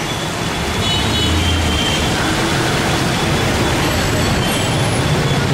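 Street traffic: a steady wash of vehicle engines and road noise, with a low engine hum swelling about a second in and a few faint high tones. It is heard from a vehicle moving along a flooded street.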